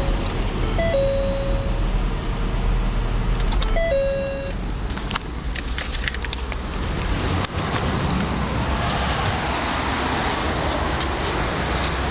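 Two-note electronic chirps from an aftermarket car alarm / remote-start system, a short higher note falling to a held lower one, twice about three seconds apart. These are followed by a run of sharp clicks and then a steady rushing noise.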